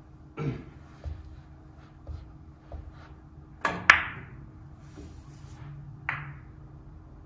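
Four-ball carom billiard shot: a sharp click of the cue tip on the cue ball about four seconds in, then a split second later the clack of the cue ball striking an object ball, ringing briefly. About two seconds later the balls click together once more.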